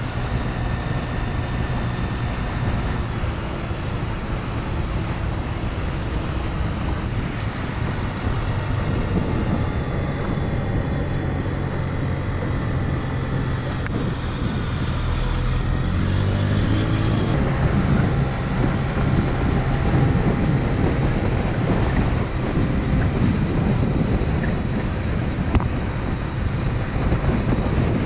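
Motor scooter's engine running under way, with wind and road noise on the microphone; the engine note climbs about two thirds of the way through as it accelerates.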